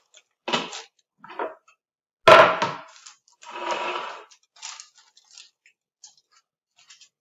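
Metal baking tray handled on the bench: a few soft knocks, one sharp clatter a little over two seconds in as it is set down, then a rustle of baking paper.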